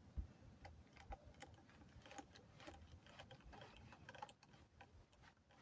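Faint, scattered clicks and light taps of small plastic and metal laptop parts being handled, with one soft knock just after the start.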